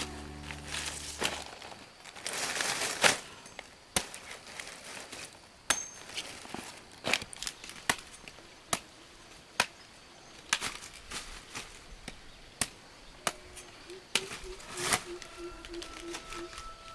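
Blade chopping, likely a machete or knife cutting banana stalk: sharp single strikes, irregular, roughly one a second. A short run of low pulsed calls comes in near the end.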